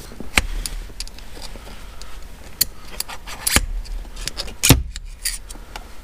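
Scattered metal clicks and knocks as a Cobb short throw shifter assembly is handled and set back into the shifter housing. The loudest knock comes about three-quarters of the way in.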